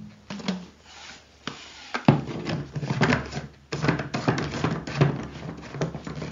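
Plastic and metal parts of a SUP hand pump rubbing, scraping and clicking as it is handled and reassembled after greasing: the piston head goes back into the aluminium tube and the top cap is worked on. The clicks are sparse at first and come thick and fast from about two seconds in.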